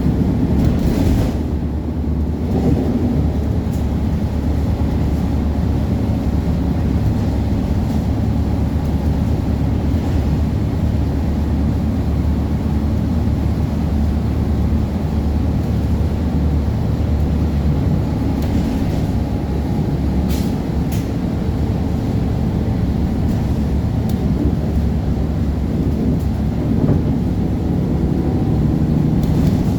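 City transit bus running with a steady low rumble of engine and road noise, with a few light clicks or rattles.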